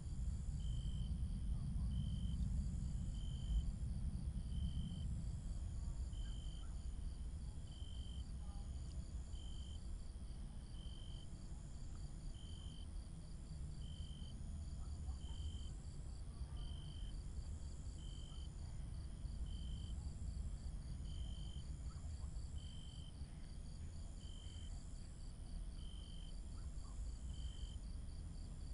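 Insects chirping steadily over a low rumble: short chirps repeat about once every second and a bit, with a fast even pulsing and longer higher notes above them.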